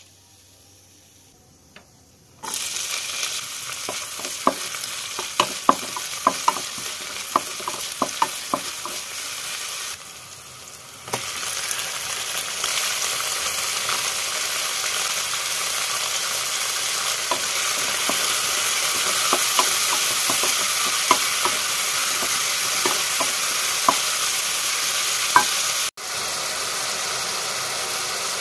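Tomatoes, onion, green chillies, garlic and cashews sizzling in hot oil in a kadai: a steady frying hiss that starts a couple of seconds in, with a quick run of sharp crackles and pops soon after and only scattered pops later.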